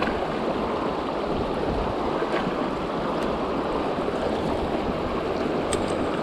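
Creek water rushing steadily over rocks, with a couple of faint clicks.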